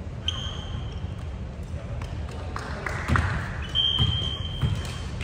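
Volleyball game in a gym: sneakers squeak sharply on the floor twice, briefly near the start and again about two-thirds through, with a few thuds of ball hits and footfalls from just past halfway, over players' voices in the echoing hall.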